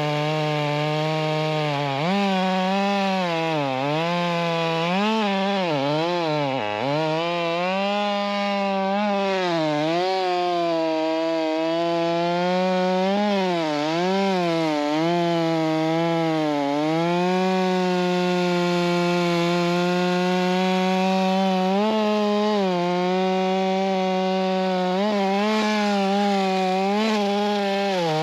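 Two-stroke chainsaw running at full throttle while cutting firewood lengthwise (noodling), which throws long chips. The engine note sags and recovers again and again as the bar loads up in the wood, then holds steadier and higher in the second half.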